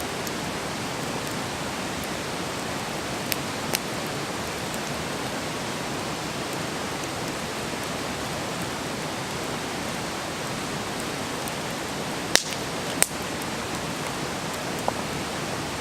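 Wood campfire burning with a steady hiss. A few sharp crackles and pops from the burning wood stand out, two of them louder, about three-quarters of the way through.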